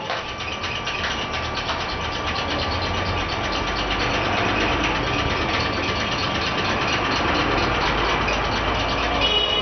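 A machine running steadily, a constant drone with a faint steady whine over it; the low rumble grows a little louder about four seconds in.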